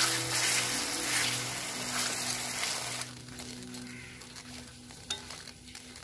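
Dragon fruit pieces sizzling in hot ghee in a kadhai while a steel ladle mashes them. The sizzle stops suddenly about three seconds in, leaving a quieter stretch with faint scrapes of the ladle.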